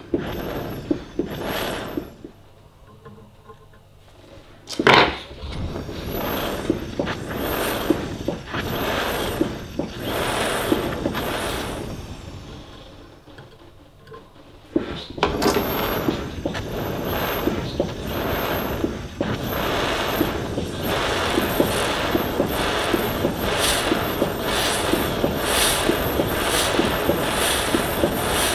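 Handheld gas torch hissing as its flame heats the rivet head of the grinder's crank handle to flow filler metal. The hiss stops twice for a couple of seconds, and each time it comes back with a sharp click, about five and fifteen seconds in; after that it runs on with a slight pulsing.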